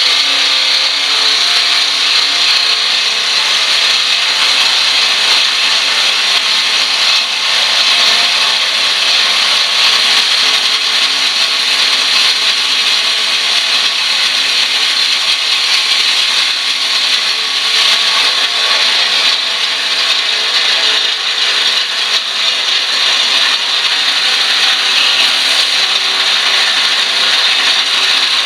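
Electric jigsaw (saber saw) with a metal-cutting blade running continuously as it cuts through the sheet metal of a furnace door, a steady, loud rasping buzz.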